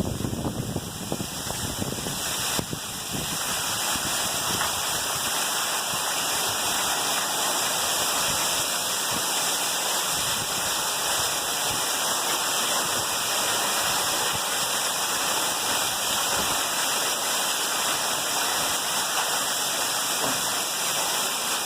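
Heavy hurricane rain and wind, a steady dense rushing noise that gets a little louder about three seconds in.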